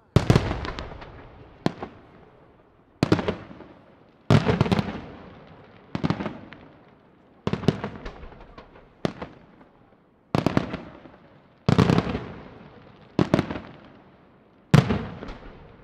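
Aerial firework shells bursting one after another, a sharp bang about every second and a half, each trailing off in a long echo before the next.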